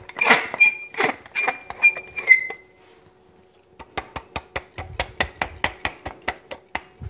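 Pepper being added to marinating pork: a few sharp taps with a short ringing ring in the first couple of seconds, then, from about four seconds in, a quick even run of clicks, about six a second, as a pepper mill is twisted.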